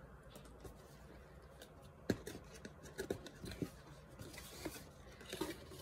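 Faint handling of a small cardboard box: scattered light taps and scrapes of fingers on card as it is turned and its flap lifted, the clearest tap about two seconds in.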